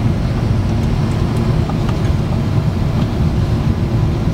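Steady cabin noise of a Boeing 777-200ER in flight, heard inside the cabin at a window over the wing: a low, even drone of the engines and airflow.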